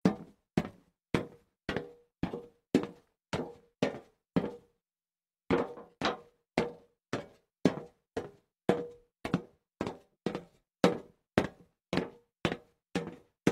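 Knock-like footstep sound effects for the cartoon cat's walk, evenly spaced at about two a second, with a break of about a second partway through.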